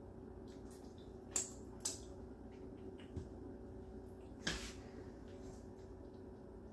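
A few light, sharp clicks and knocks of kitchen utensils at the stove, the loudest about four and a half seconds in, over a steady low background hum.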